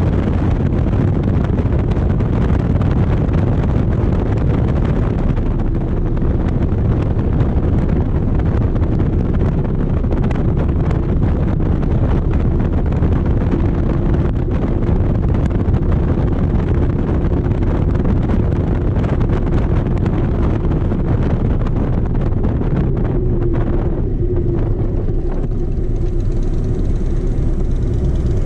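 Motorcycle riding at road speed, its engine running under a steady rush of wind on the microphone. The wind noise eases near the end as the bike slows up behind traffic.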